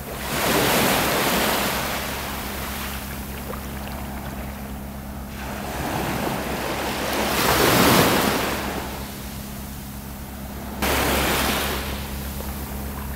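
Gentle Mediterranean waves breaking and washing up on the shore in three surges, the loudest about eight seconds in and the last starting suddenly near the end.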